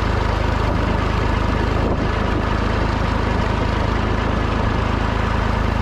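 Ford 3000 tractor's three-cylinder engine running steadily at an even speed.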